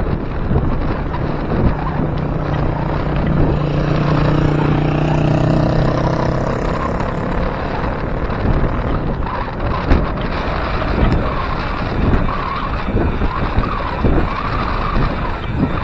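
Wind rushing over an action camera's microphone on a bicycle moving at road speed. A motor vehicle's engine drones under it from about a second in until about six seconds, then fades.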